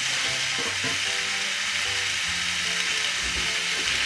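Chicken pieces, potato and carrot chunks sizzling steadily as they fry in a pan.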